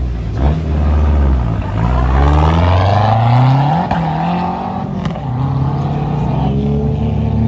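Performance car engine accelerating as the car pulls away. The revs climb, drop at a gear change about four seconds in, then rise and hold.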